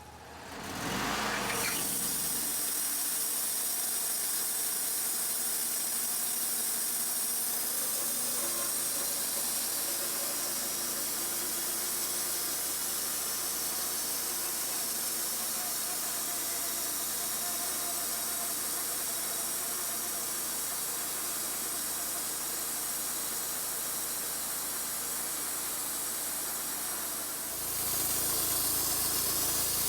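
Wood-Mizer LT35 portable band sawmill cutting through a wooden slab: a steady, loud hiss of the blade and sawdust over the running engine. It starts about a second in as the cut gets going and grows louder near the end.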